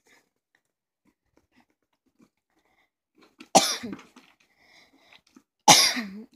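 A person coughing twice, the first about three and a half seconds in and the second near the end, with near silence before them.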